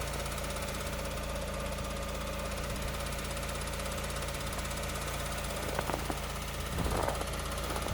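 Lada Largus 1.6-litre 16-valve VAZ-21129 engine idling steadily, with the knocking of the EVAP canister purge valve. The uploader says this knock is normal valve operation, showing only in sub-zero temperatures.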